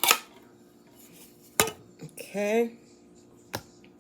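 Kitchen utensil and dishware clinking as drained canned chicken is tipped into a container of pasta: three sharp knocks, the first the loudest with a brief ring.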